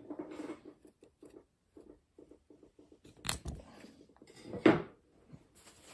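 Scissors snipping the loose end off nylon net twine after a knot is tied: small handling rustles and clicks, with a sharp snip about three seconds in and another louder sound a second and a half later.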